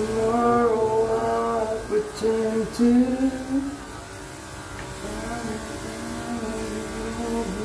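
Background music: a song with a sung melody in long held notes.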